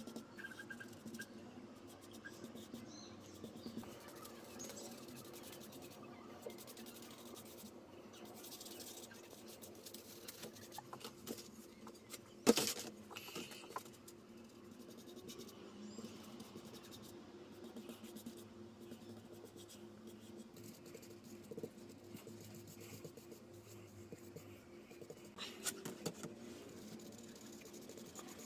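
Quiet handling sounds while painting a wooden frame with a brush: faint brush scrapes and rustles over a faint steady hum, with one sharp knock about halfway through and a few clicks near the end.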